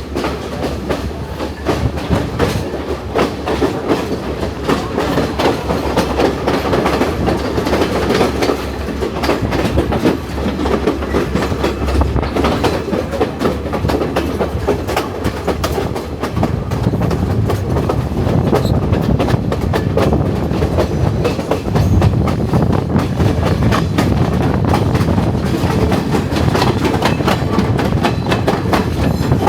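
Passenger train running along the track, heard from on board: a steady rumble with rapid wheel clicks over the rails. The low rumble grows heavier about halfway through.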